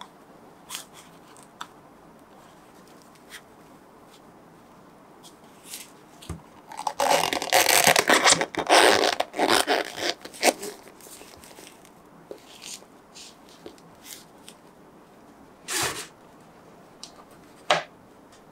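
Cotton-gloved hands handling a soft vinyl figure: scattered light rubbing and clicks, then a loud scratchy rustle of about three and a half seconds in the middle. Two short knocks follow near the end, as a small stand is set down on the table.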